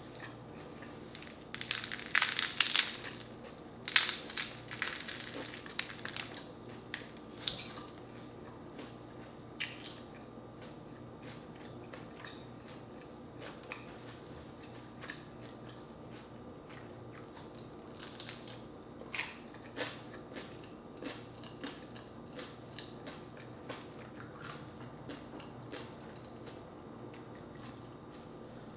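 Crunching and crackling of crispy pata, the deep-fried skin of a pork leg, as it is pulled apart and chewed close to the microphone. The crunches are loudest and thickest in the first few seconds, then come as scattered smaller crackles, with another short run about two-thirds of the way through.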